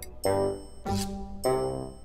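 Background music: a light tune of separate pitched notes, one starting roughly every half second, with a brief hissing hit about a second in.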